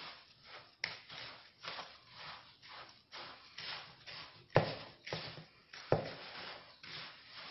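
Hands rubbing coarse semolina with oil and melted butter, fingertips only and no kneading, in repeated gritty rustling strokes. There are two sharper knocks a little past the middle.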